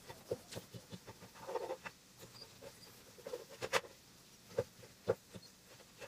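Wooden spatula chopping down through an okonomiyaki onto an electric hot plate's nonstick surface: irregular clicks and taps, with two short scrapes about a second and a half and three and a half seconds in.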